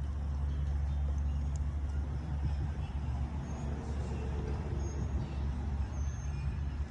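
Steady low rumble throughout, with a few faint short high chirps toward the end.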